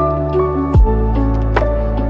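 Background music with a slow beat: sustained bass and melody notes, with a deep, pitch-dropping kick drum about a second in.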